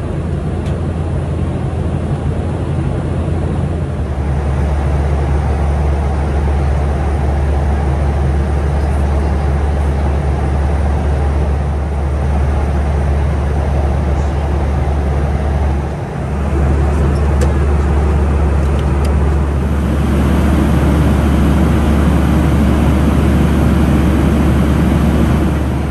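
Boeing 737-400 cabin noise in flight: a steady low drone from the CFM56 engines under a broad rush of air. The drone shifts abruptly about four seconds in, dips briefly around sixteen seconds, and grows fuller about twenty seconds in.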